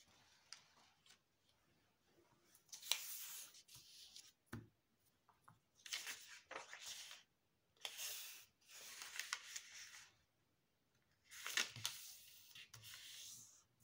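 A sheet of origami paper rustling and crinkling as it is handled and folded in half into a triangle, in several bursts of a second or so each. There is a soft thump on the table about a third of the way through.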